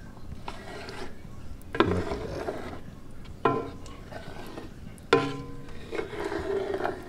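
A spoon scooping stew out of a cooking pot, scraping against it and knocking on it three times, about a second and a half apart. Each knock rings briefly.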